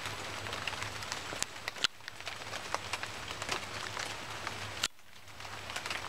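Rain falling through dense foliage, a steady hiss with many single drops ticking close by. It dips briefly about five seconds in.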